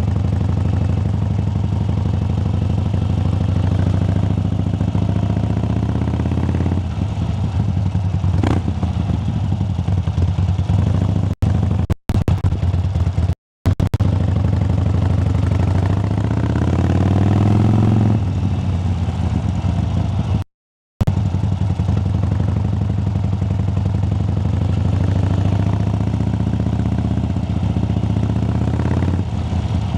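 Harley-Davidson Sportster 1200's air-cooled V-twin running hard through an aftermarket valve-flap exhaust, rising and then falling in pitch about halfway through. The sound breaks off abruptly several times where the passes are cut together.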